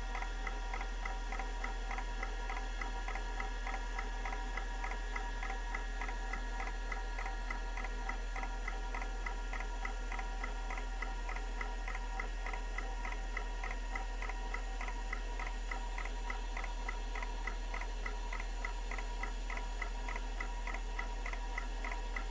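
Kalok KL343 Octagon IDE hard drive seeking during a surface scan for bad sectors: its head actuator clicks in a steady, rapid rhythm of ticks over a steady background hum.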